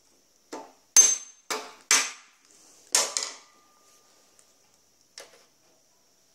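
Small hammer striking a handsaw tooth over a steel anvil held beneath it to bend the tooth into set: five sharp metallic strikes within about two and a half seconds, the loudest about a second in with a brief ring. A few faint clicks follow near the end as the saw-set spider is offered up against the teeth to check the set.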